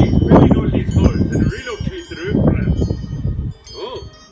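Animated-film soundtrack: loud jumbled noise for about three and a half seconds, then a quieter wavering tone near the end.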